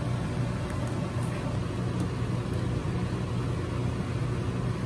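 Steady low hum, like a kitchen fan, over a saucepan of soy sauce braising liquid boiling on an electric stovetop, with a few faint small pops.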